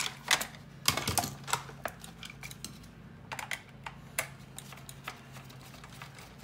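Irregular light clicks and taps of a screwdriver working a screw and hands handling the plastic housing of a Shark Ion RV700 robot vacuum, loudest in about the first second.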